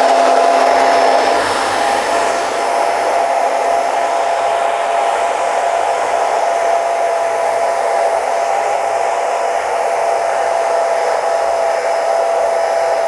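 Handheld hair dryer with a diffuser attachment running steadily on hair: a steady motor whine over the rush of air.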